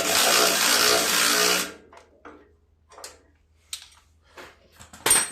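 A handheld power tool runs for about two seconds, loosening a bolt on the tractor's starter-generator mount, then stops. Small clicks of tool handling follow, with a sharp clack near the end.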